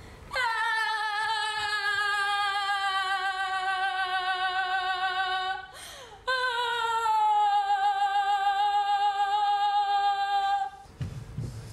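A woman's long, drawn-out theatrical wail: two held notes of about five seconds each, each sliding down at the start and then held with a quavering pitch, with a short breath between.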